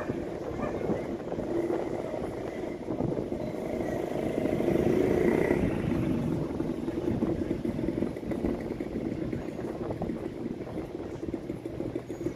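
A boat's engine running with a low, steady hum that swells about four to six seconds in and then eases off.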